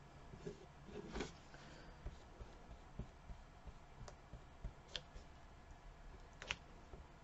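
Faint, scattered clicks and light taps of craft materials being handled on a tabletop: a glue bottle and a flat paintbrush dabbing Mod Podge onto small paper cut-outs.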